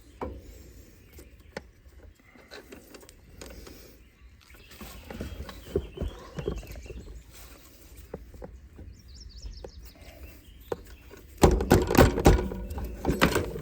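Hands working on a bicycle's rear wheel and drivetrain: scattered clicks and knocks of metal parts and tools, ending in a burst of loud rattling clatter about two seconds before the end.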